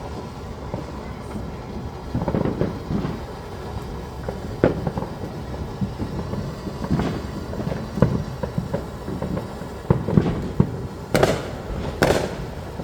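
Fireworks going off: a string of bangs every second or two over a continuous low rumble, with the sharpest, loudest cracks near the end.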